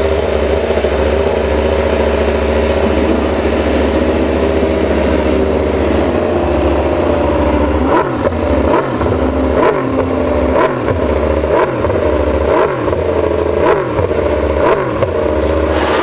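Suzuki GSX-RR MotoGP bike's inline-four engine being warmed up on its stand: running at a steady fast idle, then from about halfway blipped on the throttle over and over, roughly three revs every two seconds.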